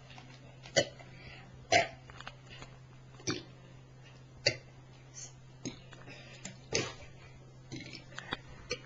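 A series of short, sharp burps, spaced roughly a second apart, the loudest in the first half, with a low steady hum underneath.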